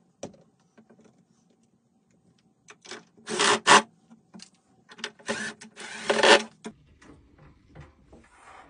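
Cordless drill-driver running in short bursts, driving screws to mount a door's hinge on a wooden nightstand: two main runs, about three seconds in and again around five to six seconds in, with a few shorter blips around them.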